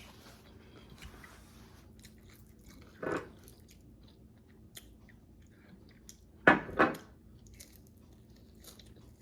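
Close-up chewing and biting of crispy fried chicken wings, with small crunches and wet mouth clicks. There is one louder short sound about three seconds in and two close together about six and a half seconds in.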